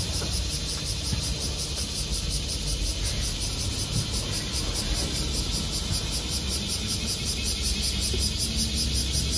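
Diesel city bus idling at a stop and then pulling away, its engine a low rumble. A loud, steady, pulsing chorus of summer cicadas fills the high end.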